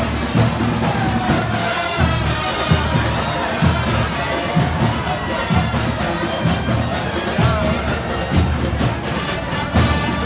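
A parading band plays, with a steady drum beat of about one to two hits a second under a wavering wind-instrument melody.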